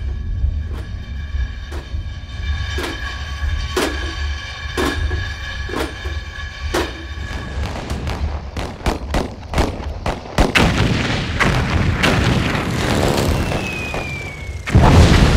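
Animated-film soundtrack of war sound effects over music: a held droning tone with a heavy beat about once a second, then quicker gunfire-like cracks from about eight seconds in, a short falling whistle, and a loud explosion near the end.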